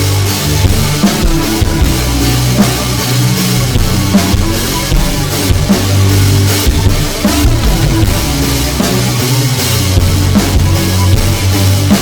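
Loud rock music with a heavy drum kit and booming bass, playing without vocals.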